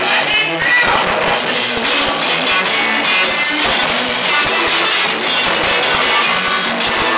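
Live blues band playing: electric guitar over a drum kit, loud and continuous.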